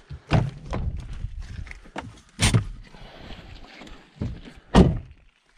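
A Jeep's door latch clicks open and the door swings open, followed by several knocks and thumps of someone climbing into the cab, the loudest near the end.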